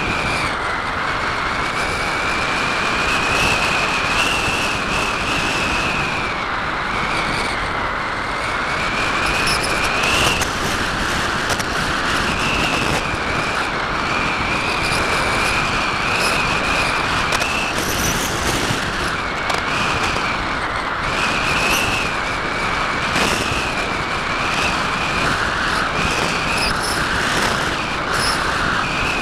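Brushless electric motor and propeller of a Parkzone Radian RC glider, heard from its onboard camera: a steady high whine that wavers slightly in pitch, over constant rushing wind noise.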